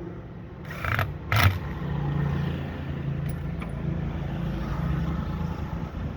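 Two short scraping knocks about a second in, then a steady low mechanical hum of a running motor.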